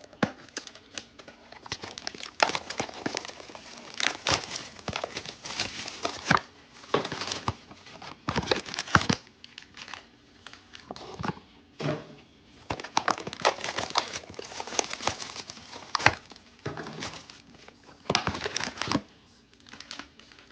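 Foil and plastic card-pack packaging being handled, crinkling in irregular bursts.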